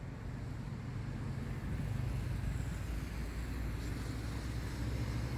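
Low, steady rumble of a vehicle engine running, growing louder about two seconds in.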